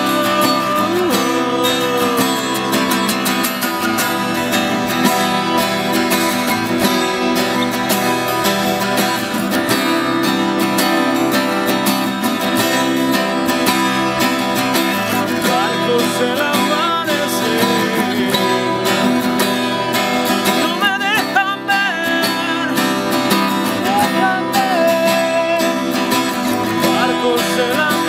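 Two acoustic guitars playing a folk song together, a steady, continuous chordal accompaniment.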